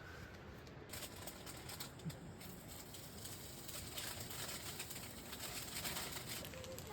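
Food sizzling in a hot pan, starting about a second in, the crackle building as it goes.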